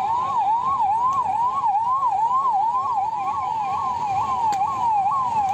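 Ambulance electronic siren on yelp, its pitch sweeping rapidly up and down about three times a second.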